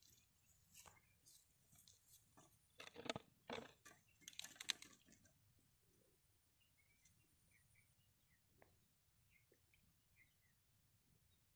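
Crackly rustling and crunching close by, from handling on dry ground and waterside plants, in a cluster of sharp strokes about three to five seconds in. After that, faint short bird chirps.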